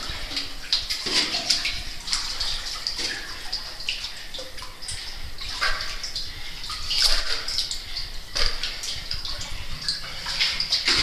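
Water sloshing and splashing irregularly as cavers wade chest-deep through a cave stream, over a steady rush of flowing water.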